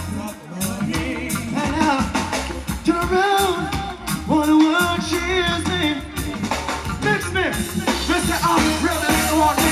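Live reggae music: a singer's voice over a band with a steady bass line.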